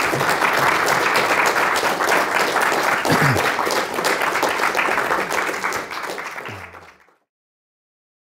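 Audience applauding, a dense steady clatter of many hands clapping that fades out to silence about seven seconds in.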